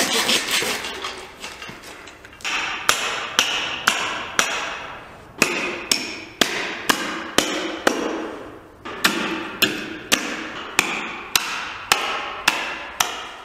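A hatchet chopping down through a deer carcass's backbone, splitting it into two sides: a steady run of sharp blows, about two a second, each ringing briefly, with two short pauses.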